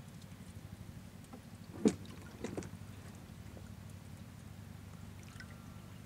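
Water dripping and trickling off a wet cast net held over the river, over a steady low rumble. A sharp knock about two seconds in, and a smaller one half a second later.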